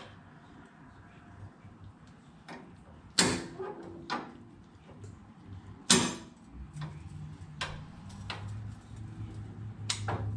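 Sharp metallic clanks, two loud ones about three and six seconds in with lighter clicks between, as steel jack stands are set and adjusted under a Jeep CJ7 frame. A low steady hum comes in after the second clank.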